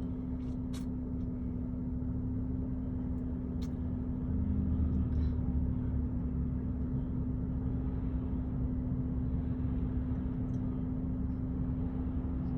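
Steady low rumble of engines under a constant hum, growing louder for a couple of seconds about four seconds in, with a few faint clicks.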